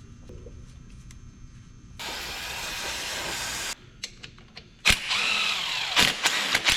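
A power tool running for about two seconds near the end, its pitch gliding up and down, with sharp knocks; before it, about two seconds of steady hissing that cuts off sharply, and a loud knock just before the tool.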